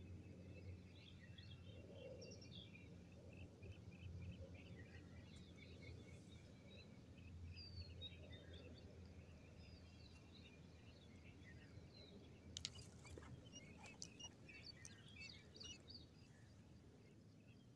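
Faint outdoor ambience of small wild birds chirping and trilling in the background over a low steady rumble, with a few sharp clicks about two-thirds of the way through.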